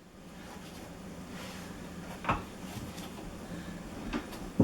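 A few short clicks and knocks of the transfer bench's seat and sliding rings on its rails as the brass push buttons are pressed and the seat is worked onto the rails: one about halfway through, two more near the end.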